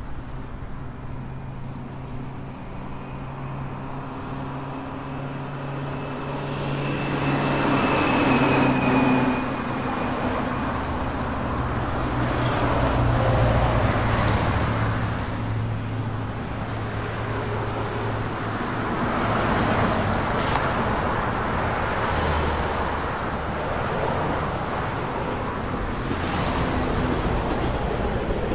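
A car driving along a street, heard from inside the cabin: a steady engine hum under tyre and road noise. The noise builds over the first several seconds, then swells and eases as the car speeds up and slows.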